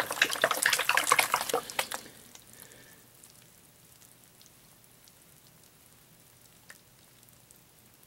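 Water splashing and sloshing as a 14-inch plastic gold pan is swirled and dipped in a tub of water. It stops about two seconds in, leaving only a faint background with a single light tick.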